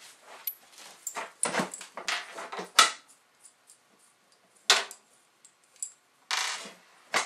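Jangling clinks and knocks as a handle is handled and set against a metal tool chest lid. There is a busy cluster of sharp clinks in the first three seconds, then a few single knocks.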